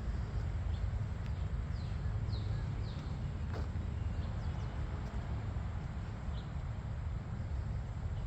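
A bird calling in short, high, falling chirps, several in a row in the first half and once more later, over a steady low rumble.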